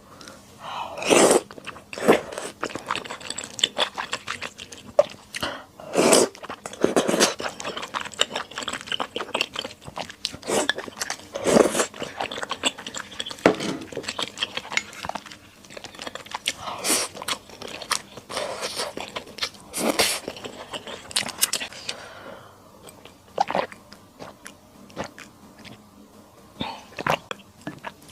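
Close-miked chewing and biting of Sichuan skewer hotpot and glass noodles, with crisp crunches and wet mouth clicks. The sounds are dense for most of the stretch, then thin out and grow quieter near the end.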